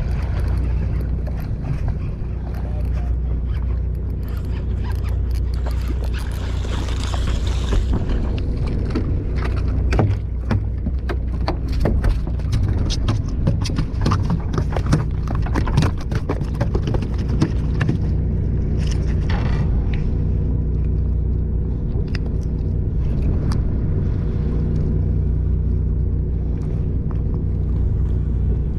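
Boat engine idling steadily. From about a quarter of the way in to past the middle, a flurry of sharp knocks and slaps comes from a landed bluefish thrashing on the boat deck.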